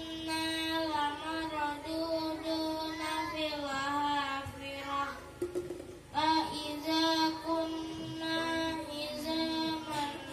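A boy chanting Quranic recitation in a melodic style, holding long notes with wavering ornaments. He breaks off about five seconds in and starts a new phrase about a second later.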